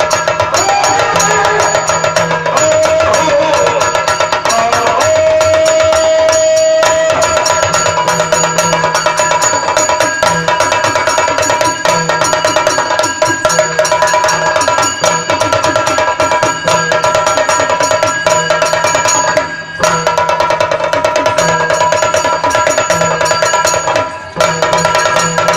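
Yakshagana ensemble music: fast, dense drumming on the chende over a steady held drone, stopping briefly twice, about 20 and 24 seconds in.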